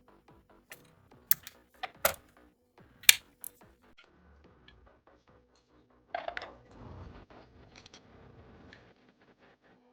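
Computer hardware being handled during a PC build: a run of sharp clicks and taps in the first few seconds, the loudest about three seconds in, then a rustling scrape lasting a few seconds, over faint background music.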